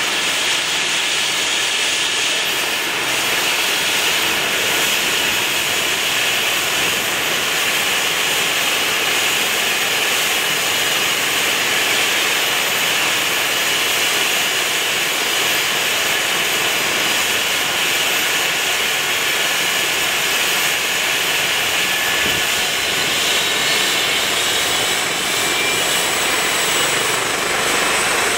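Eurocopter EC135 air ambulance helicopter running on the ground before lift-off: a steady turbine whine and rotor noise, its pitch edging up slightly in the last few seconds.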